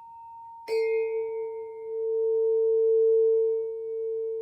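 A sound-healing instrument is struck about a second in and rings with a pure, steady tone for the third-eye chakra. It swells and wavers slightly as it sustains. A fainter, higher tone from an earlier strike keeps ringing underneath.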